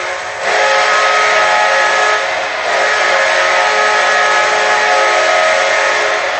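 Minnesota Wild arena goal horn sounding in long, steady multi-tone blasts, breaking off briefly just after the start and again about two and a half seconds in, over loud crowd noise.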